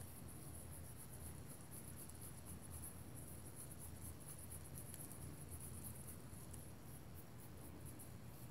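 Faint, fine scratchy rubbing of a baby wipe over a polymer clay leaf lying on paper, working black pan pastel into the leaf's veins.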